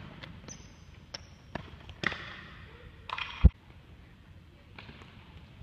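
Sneakers thudding and squeaking on a hardwood gym floor during a javelin run-up and throw, with the knocks echoing around the hall. A single heavy thud about three and a half seconds in is the loudest sound.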